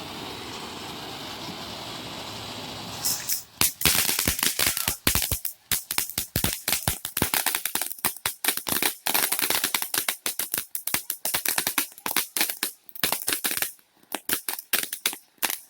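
A steady background noise, then about three seconds in a string of firecrackers goes off: rapid, irregular sharp pops, several a second, thinning out near the end.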